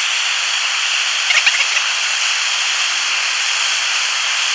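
Bernzomatic TS8000 hand torch burning with a steady loud hiss of the flame as it heats the end of a steel file.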